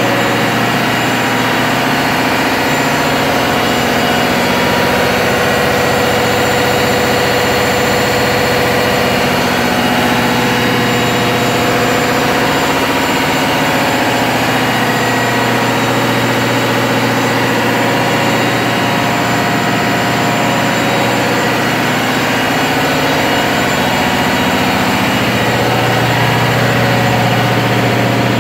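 Ship's engine-room machinery running steadily: diesel engines and generators giving a loud, constant hum made of several steady tones. A deeper hum comes up near the end.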